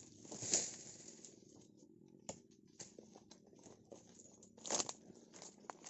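Dry palm fronds and leaf litter crunching and rustling under a person's footsteps, in irregular crackles, the loudest about three-quarters of the way through.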